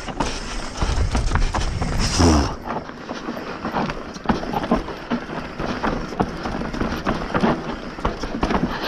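Bird Zero AM hardtail mountain bike clattering down a rough, dry trail: a fast, irregular run of knocks and rattles from the frame, chain and tyres hitting roots and rocks. A low rush sits under it for the first two and a half seconds, then drops away.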